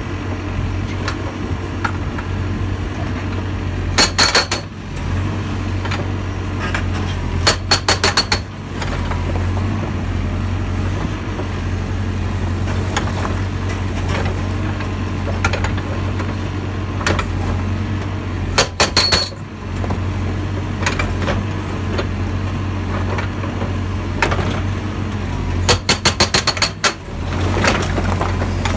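OMP TM125SA hydraulic breaker (275 kg) on a CAT 432F backhoe loader hammering its chisel into a pile of stones in four short bursts of rapid blows, with scattered lighter knocks between them. The backhoe's diesel engine runs with a steady low hum underneath.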